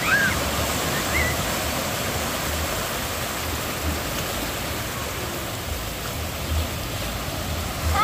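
Small surf waves breaking and washing through the shallows in a steady rush of water. A couple of short, high voice cries come near the start.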